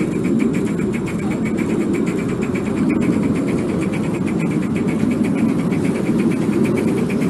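5-inch gauge live-steam model J94 Austerity 0-6-0 tank locomotive running under load, with a quick, even beat over a steady rushing noise.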